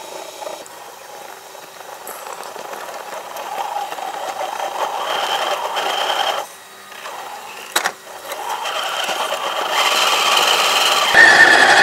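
Electric motor and gearbox of a 1:10 scale RC4WD Trail Finder 2 rock crawler whining as it crawls over rocky dirt. The sound drops away briefly about six and a half seconds in, a sharp click follows a little later, and it grows louder near the end.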